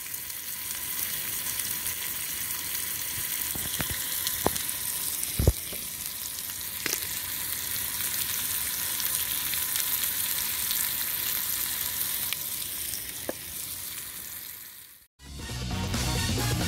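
Hida beef slices sizzling in a frying pan, a steady hiss with a few sharp pops of spitting fat. The sizzling cuts off suddenly near the end.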